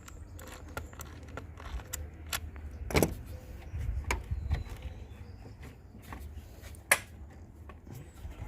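Metal tools clicking and clanking on a car battery terminal as a socket wrench loosens and removes the negative terminal clamp: scattered light clicks, with two louder knocks about three seconds and seven seconds in.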